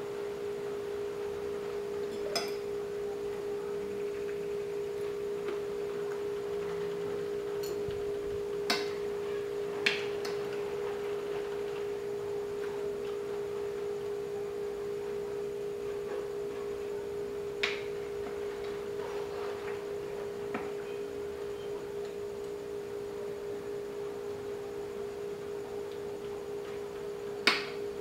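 Spoon and fork clinking and scraping on a dinner plate now and then, about five sharp clinks, the loudest near the end, over a steady unbroken tone.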